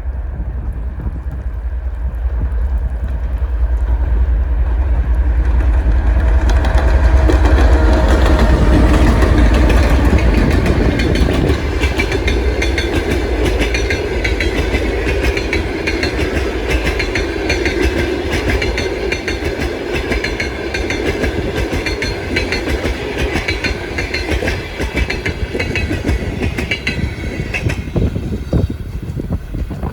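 Two TEP70 diesel locomotives under power heading a passenger train. Their diesel engines give a heavy rumble at first, then the passenger cars roll past with a dense clickety-clack of wheels over the rail joints, easing off toward the end.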